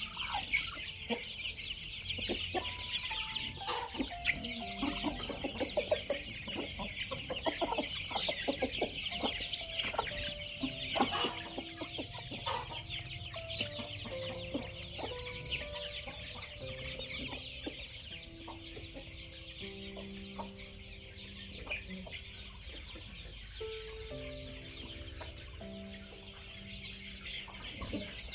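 A flock of chickens clucking as they are fed, busiest in the first half, over a steady high-pitched chirring.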